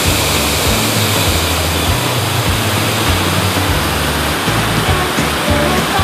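A waterfall and fast stream rushing steadily, a loud, even wash of water noise. Background music with held bass notes plays over it.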